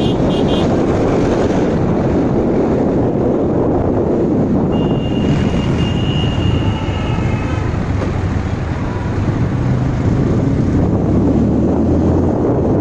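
Wind buffeting the microphone over the steady engine and road noise of a motorcycle riding through city traffic. A faint high whine passes about five seconds in.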